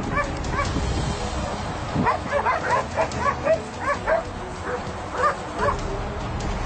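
Belgian Malinois yipping and whining in short, rapid high calls. A few come right at the start, and most are bunched in a quick run from about two seconds in until near the end.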